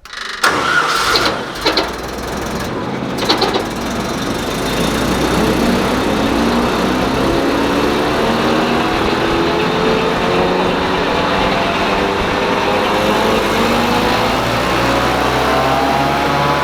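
A 1997 Altec DC12 direct-drive wood chipper's engine starts about half a second in, then runs loud, its pitch rising slowly and steadily over the rest as the engine and chipper spin up to speed.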